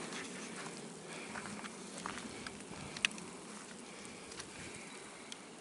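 Light wet snow or sleet pattering around the microphone, a faint even hiss with scattered small ticks, the sharpest about three seconds in.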